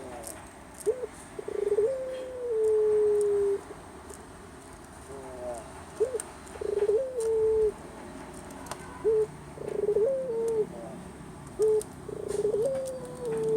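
Barbary dove (puter) cooing: four repeated calls, each a short note, a quick rolling burst, then a long falling coo.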